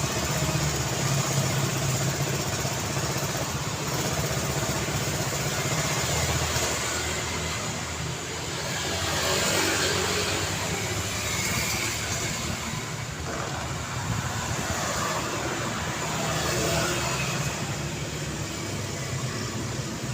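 Continuous street traffic: car engines running and tyres hissing on the road. A vehicle passes close about halfway through, louder for a moment.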